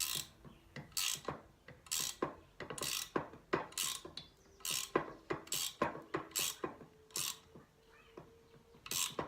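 A spanner working a nut along a threaded rod, with a short rasping click at each stroke, roughly one to two a second and pausing briefly near the end. The nut is being tightened to press a star nut down into a fork steerer tube, and it turns stiffly.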